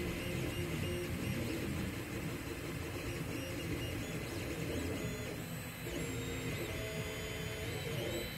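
Anycubic Mega Zero 3D printer printing: its stepper motors sing in short tones that jump from pitch to pitch as the print head and bed move, over the steady whir of its cooling fan.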